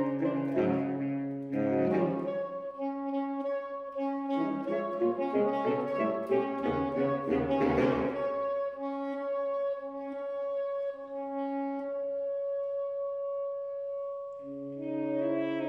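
Saxophone quartet of soprano, alto, tenor and baritone saxophones playing a twelve-tone concert piece. Short rhythmic figures move between the parts over low baritone notes. Then one upper saxophone holds a long steady note while the low parts fall silent for a moment, and the low parts come back in near the end.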